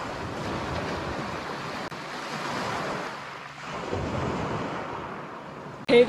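Small waves washing in and out over a pebble shore, the surf swelling and easing every second or two, with wind buffeting the microphone.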